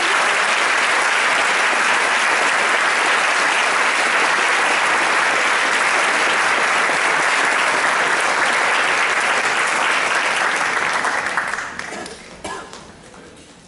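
Audience applauding, full and steady for about eleven seconds, then dying away to a few scattered claps near the end.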